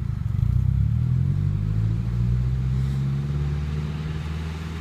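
Nissan 240's engine pulling under throttle with a steady note that fades a little near the end. The uploader says the engine is knocking.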